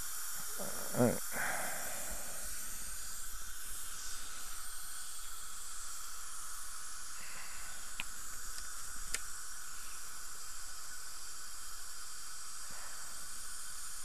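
Steady hiss, with a brief low sound about a second in and two sharp clicks, about a second apart, midway through.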